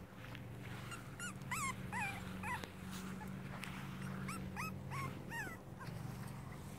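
Cavalier King Charles Spaniel puppies, five weeks old, giving short high yips and squeaks as they play, in two quick runs of calls, over a steady low hum.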